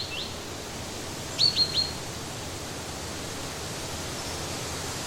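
A small bird chirping over a steady outdoor hiss: two quick upward chirps at the start, then three louder ones in quick succession about a second and a half in.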